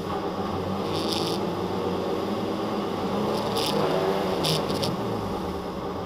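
BMW E30's M50B25 straight-six heard from inside the cabin, running at steady revs with the car stationary. A few short hissing bursts come through about a second in and twice more past the middle.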